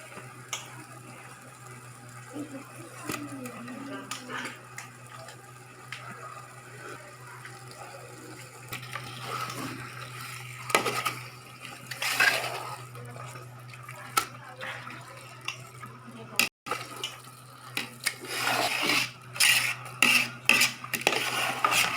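Metal spoon or ladle clinking and scraping against a cooking pot while a biryani masala is stirred, over a steady low hum. There are louder bursts of stirring and clatter near the middle and again toward the end.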